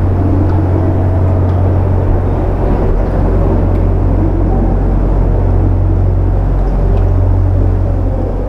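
Narrowboat engine running steadily, a constant low hum, heard inside a brick canal tunnel.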